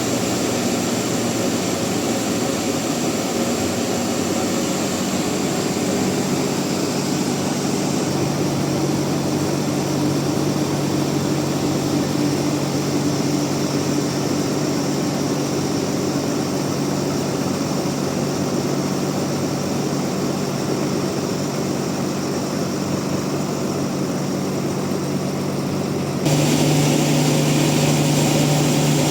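Large sawmill bandsaw running with a steady mechanical drone. About three seconds before the end it turns abruptly louder and brighter.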